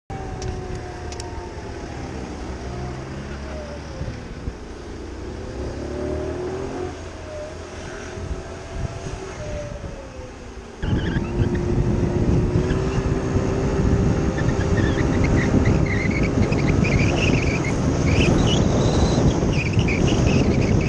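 Kymco Agility City 50 scooter's small four-stroke single-cylinder engine running at low speed, its pitch rising and falling. About eleven seconds in, loud wind noise on the microphone comes in suddenly over a steadier engine drone as the scooter picks up speed.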